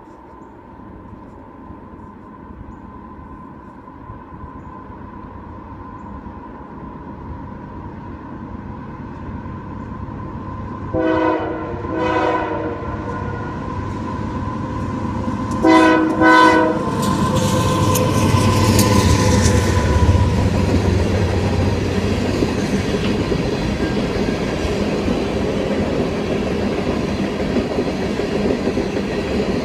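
A diesel freight train approaching and passing, getting steadily louder. The locomotive horn sounds four short blasts in two pairs, about 11 and 16 seconds in; then the locomotives go by with a low engine rumble, followed by the coal cars rolling past with a steady clickety-clack.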